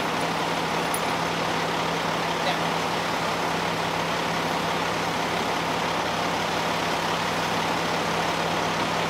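Steady mechanical drone with a constant low hum, unchanging throughout.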